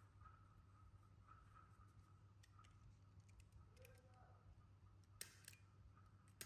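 Near silence: low room hum with a few faint, sharp clicks, two of them close together about five seconds in.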